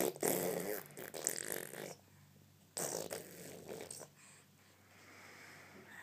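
A pet making loud, fart-like sputtering noises: two rough bursts, the first about two seconds long, the second about a second long, followed by quieter breathy noise.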